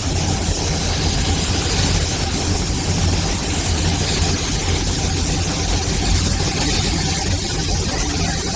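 Car engine running steadily: an even low hum with a constant high hiss, no revving.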